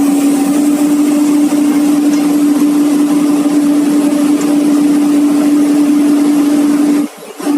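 Komatsu PC200-8 excavator running steadily at idle, a constant engine and hydraulic hum with no change in speed. The sound cuts out for a moment near the end and comes straight back.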